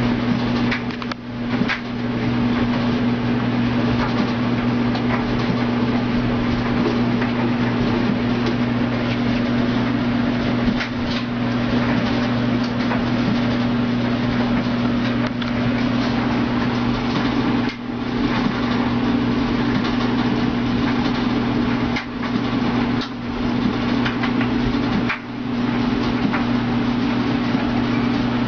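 A machine running steadily: a deep, constant hum with a whirring rush over it, broken by a few brief dips.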